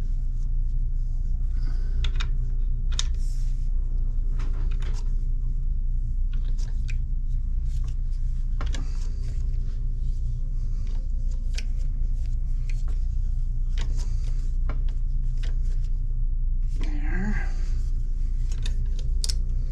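Scattered small clicks and metallic ticks as a Brompton hinge pin press tool is turned by hand, pressing a new frame hinge pin into the hinge, over a steady low rumble. A brief murmur of a voice comes about 17 seconds in.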